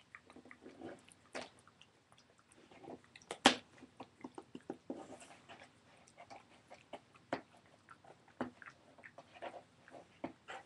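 Small dog licking a face close to the microphone: a run of irregular wet smacks and clicks, with one sharp, louder click about three and a half seconds in.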